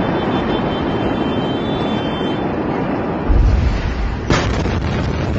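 Blast of the Beirut port ammonium-nitrate explosion reaching the phone: a sudden deep boom about three seconds in, then a sharp crack about a second later, over a steady rushing noise.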